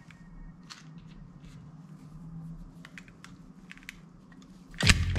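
A plastic toy double-barrelled bead gun being handled at its open breech: scattered light plastic clicks and rattles. Loud music comes in near the end.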